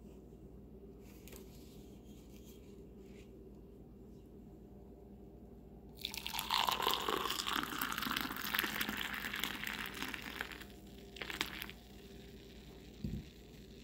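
Hot boiled milk poured from a steel saucepan into a drinking glass: a splashing pour starting about six seconds in and lasting about four seconds. A couple of short light knocks follow near the end.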